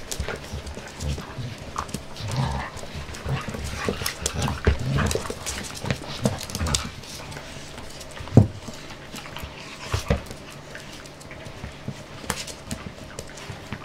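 Jack Russell terriers and a Staffordshire bull terrier play-fighting: low, rough growls and panting, with scattered sharp knocks and scuffles from the tussle, the loudest about eight seconds in. The growls come mostly in the first half.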